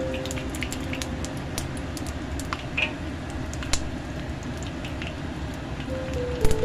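Hot oil sizzling steadily in a wok around pieces of tofu skin as they fry, with scattered sharp pops of spattering oil.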